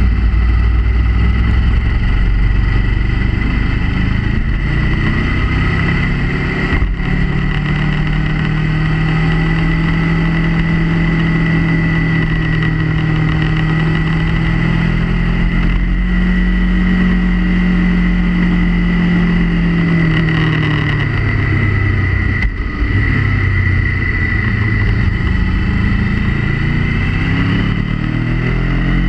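Motorcycle engine under way on a winding road, its revs climbing a quarter of the way in, holding, dropping about two-thirds through and rising again near the end, over a constant low rumble of wind on the camera microphone. A steady high whine runs underneath.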